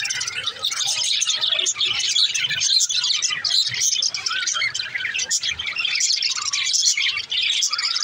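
A flock of budgerigars chirping and warbling, many overlapping chirps in a continuous busy chatter.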